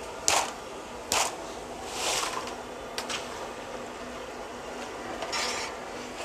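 Short rustling bursts, about five of them, from crisp freshly fried nacho chips shifting in a plastic tub as it is handled, with one sharp click near the middle. A faint steady hum runs underneath.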